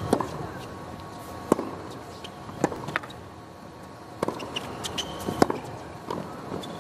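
Tennis rally on a hard court: sharp pops of the ball struck by rackets and bouncing on the court, about one a second, over a low steady stadium hum.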